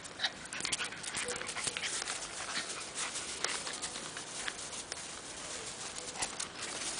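Small dog playing rough with a cat: quick, irregular scuffling and rustling, with a short faint whimper about a second in and another near the end.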